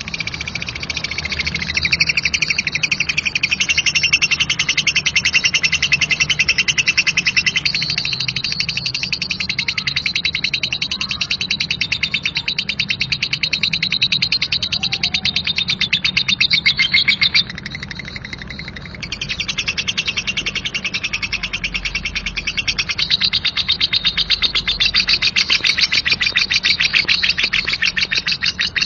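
Lovebird's "ngekek" song: a long, coarse, very rapid rattling chatter held on and on, breaking off briefly about 17 seconds in and then starting again.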